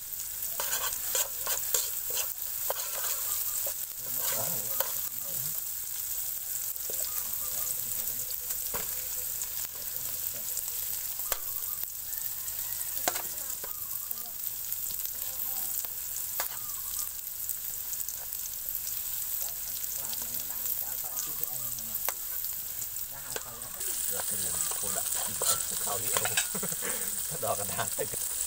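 Chopped chillies and garlic sizzling in a metal wok, with a metal spoon stirring and scraping and clicking against the pan. The sizzle grows louder near the end.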